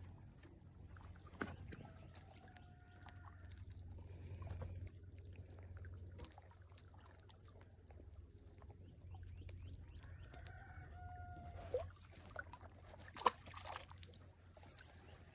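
A rooster crowing twice, each crow ending in a long held note, over a low steady rumble with scattered small clicks.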